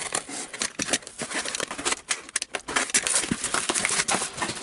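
Crackling and rustling of a wrapped box's packaging being handled and opened, a dense run of quick clicks and scrapes.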